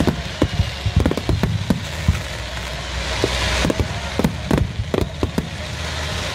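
Fireworks heard close to the launch site: a rapid, irregular string of sharp bangs from aerial shells launching and bursting, over a steady hiss.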